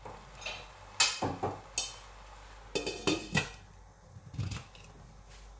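Clinks and knocks of a stainless steel cooking pot and its glass lid as the lid is put on. There are several sharp strikes in the first two seconds, a cluster about three seconds in, and a last rattle about four and a half seconds in as the lid settles.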